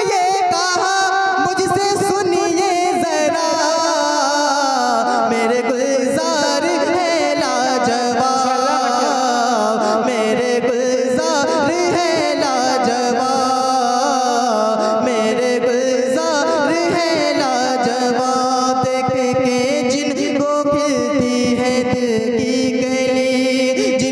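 A man singing a naat, drawing the melody out in long, wavering held notes without clear words.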